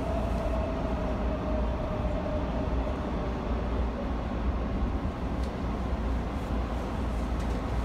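A steady low rumble with an even hiss over it, and a faint steady tone in the first few seconds that fades out.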